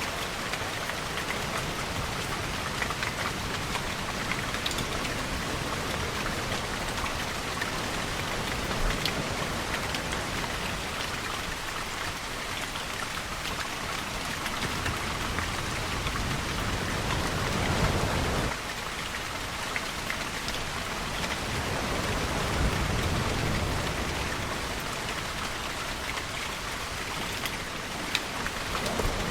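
Steady rain falling on hard surfaces, with ocean waves rushing in beneath it. One wave swells a little past the middle and drops off abruptly, and another follows a few seconds later.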